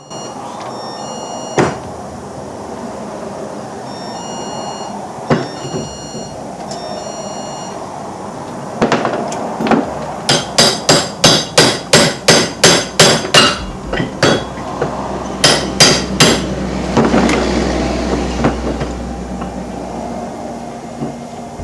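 Hammer blows on the steel U-joint of a Dodge Durango's front driveshaft, knocking at the seized joint. There are a few single knocks first, then a fast run of sharp strikes, about three a second, from about nine to sixteen seconds in.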